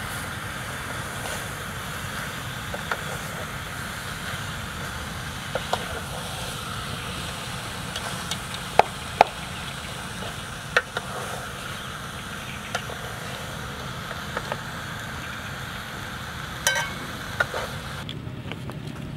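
A long wooden stirring stick knocking and scraping in a metal cooking pot, with scattered sharp clicks over a steady background hiss and low rumble.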